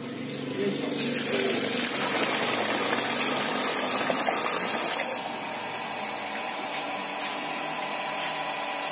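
Jet Power electric water pump running steadily, with water gushing from its outlet pipe into a tub. The rush of water starts about a second in and eases about five seconds in.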